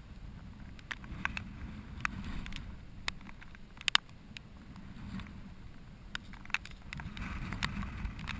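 Low rumble of wind on the microphone, with irregular sharp clicks and ticks from handling a bent surf rod and reel while fighting a hooked striped bass.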